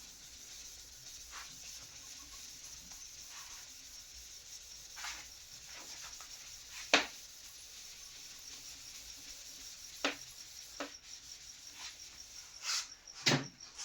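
Faint scratching of a writing tool forming characters, with a few short taps spread through it and the sharpest tap about 7 seconds in.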